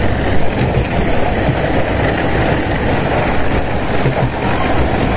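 Coir defibering machinery and its husk conveyor running, a steady mechanical noise with a low rumble.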